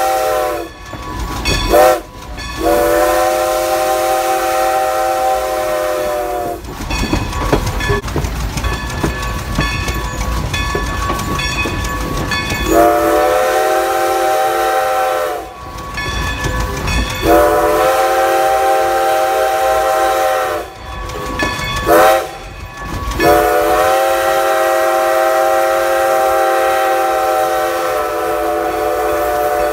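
Steam whistle of Baldwin 2-10-0 locomotive No. 90, blown from close by while the engine is moving: a short toot and a long blast, then long, long, short, long, the grade-crossing signal. Between the blasts the locomotive and its wheels on the rails are heard running.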